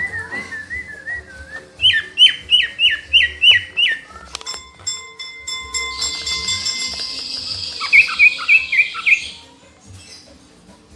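Cica ijo songbird singing a varied song. It opens with a wavering whistle, then gives a fast run of about eight sharp down-slurred notes, roughly four a second, and later a buzzy high phrase broken by quick chipping notes.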